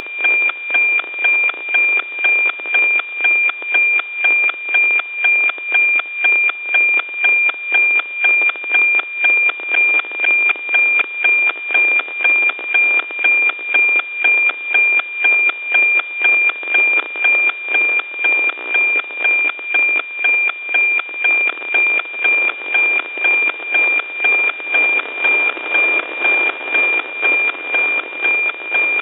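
NOAA 15 weather satellite's APT image signal, received on an RTL-SDR and demodulated to audio: a steady high tone over static, beating with an even tick about twice a second, one tick per scan line of the picture. The static grows a little stronger near the end.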